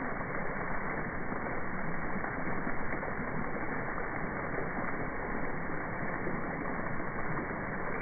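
Steady, muffled outdoor background noise, an even rushing hiss with no distinct events and the high end cut off.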